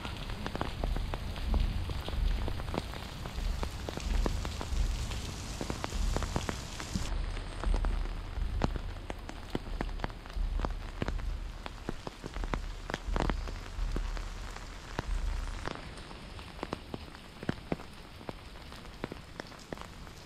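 Steady rain falling, with frequent sharp taps of drops landing close by. A low rumble runs under it and stops about three-quarters of the way through.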